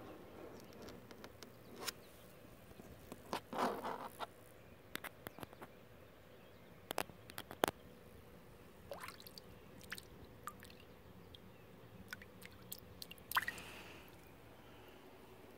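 Fingertips tapping and scratching on the rim of a plastic kiddie pool: scattered soft taps and scrapes, with a short squeak and louder clusters about four seconds in and near the end.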